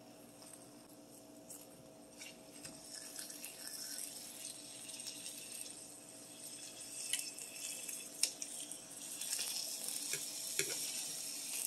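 Pork chops starting to sizzle in a hot frying pan, faint at first and growing louder from about two seconds in, with a few sharp clicks of kitchen scissors snipping the meat.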